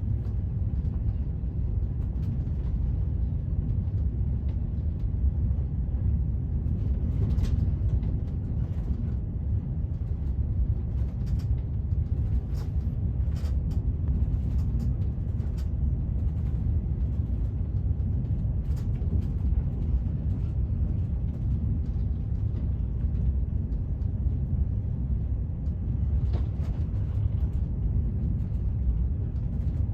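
A vehicle running with a steady low rumble, heard from on board, with scattered faint ticks and rattles.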